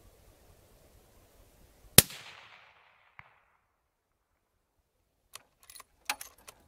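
Single suppressed rifle shot from a Ruger Predator bolt-action in .243 Winchester with a 30-calibre suppressor: a sharp crack with a short echoing tail. About a second later comes a faint tick, the sound of the bullet striking the steel target at 300 yards. Near the end there is a quick series of metallic clicks as the bolt is worked to eject the case and chamber the next round.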